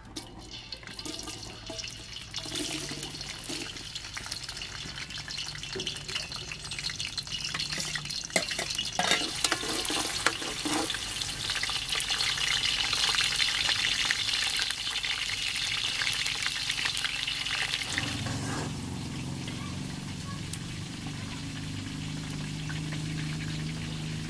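Food frying in a pan: a steady sizzling hiss with scattered crackles and clicks. The sizzle cuts off abruptly near the end, leaving a quieter low hum.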